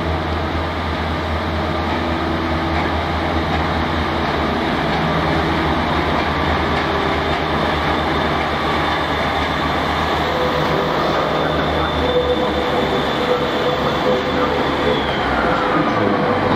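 Class 143 Pacer diesel multiple unit running along the platform, its underfloor diesel engines giving a steady low drone with wheel noise on the rails. In the second half a thin steady whine joins in and fades out shortly before the end.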